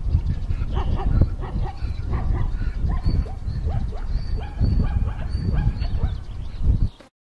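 An animal's short, repeated yelping cries over a low rumble, cutting off suddenly near the end.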